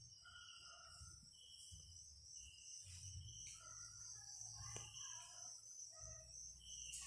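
Near silence with a faint, steady high trill of insects such as crickets, broken by short chirps at other pitches.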